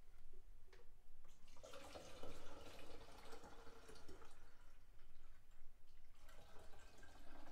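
Water poured from a plastic jug through a funnel into a glass gallon jug, splashing and filling in two spells: from about a second and a half in to about four seconds, and again from about six seconds in.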